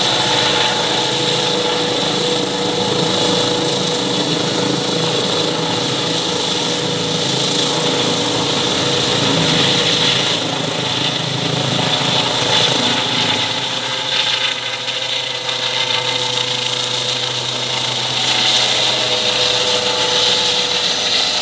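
Eurocopter EC135 P2 helicopter in flight overhead: the steady whine of its turbine engines and tail rotor over the rush of the main rotor, with a low hum coming in about two-thirds of the way through.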